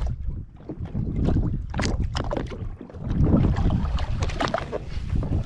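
Wind buffeting the microphone over water slapping and splashing against a jet ski's hull, uneven and gusty.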